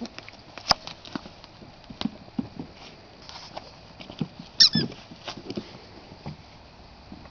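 Puppies playing among plastic balls and toys: scattered light taps and knocks, a sharp click under a second in, and one short, high squeak about four and a half seconds in, the loudest sound.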